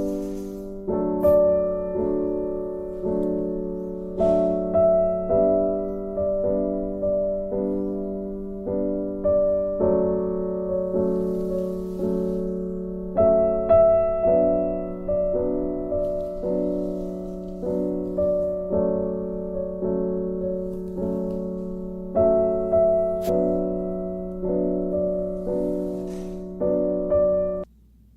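Background piano music: a gentle piece of notes and chords struck about once a second, each fading before the next, stopping abruptly near the end.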